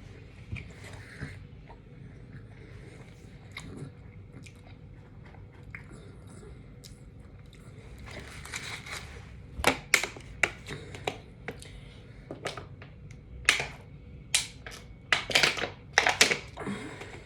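A person chewing and smacking close to the microphone: faint for the first half, then a run of sharp clicks and short smacks in the second half.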